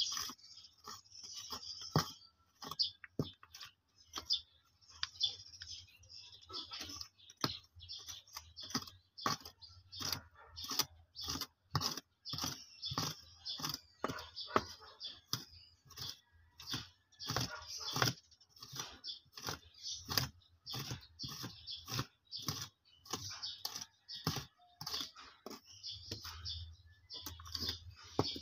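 A small hand digging tool scraping and knocking in soil and stones, uneven strokes about twice a second, as dirt is cleared from around a buried PVC water pipe fitting.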